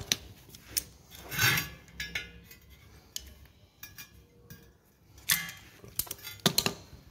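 Irregular metal clicks and clinks of locking pliers working on a steel wheel. They are loudest about a second and a half in and again near the end, as a new rubber snap-in valve stem is given a last small pull to seat it in the rim's valve hole.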